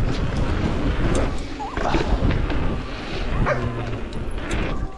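A dog barking briefly, about two and three and a half seconds in, over a steady rushing noise.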